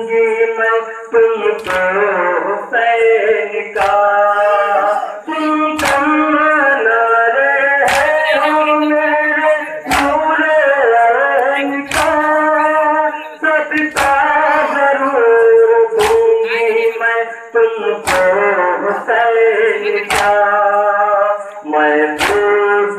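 A male voice chanting a Muharram noha, with a group's chest-beating (matam) in unison: a sharp slap landing about every two seconds to the rhythm of the lament.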